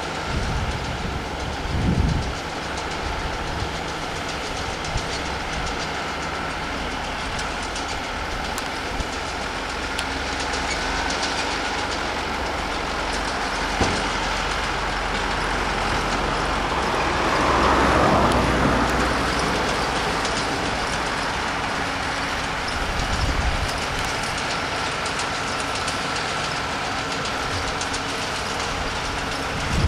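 Diesel engines of Ford farm tractors and a Welger hay baler running steadily at work, a continuous mechanical drone with a low rumble, swelling louder about two-thirds of the way through.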